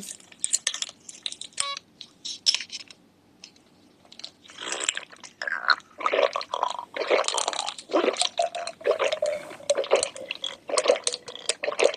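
Close-miked ASMR eating sounds of seafood: wet squishing, crunching and chewing in quick clicks and smacks, with a short lull about three to four seconds in.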